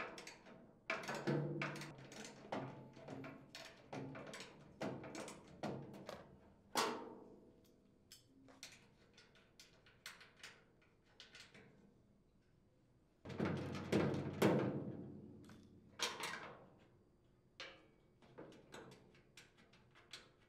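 Half-inch socket ratchet and wrench working nuts off bolts on a steel housing: bursts of quick ratchet clicks and metal clinks, with a quiet stretch in the middle. The loudest burst comes about two thirds of the way through.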